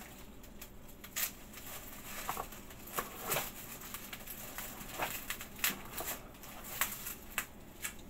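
Someone handling kitchen items and ingredients: irregular sharp clicks and knocks with brief rustling, scattered throughout.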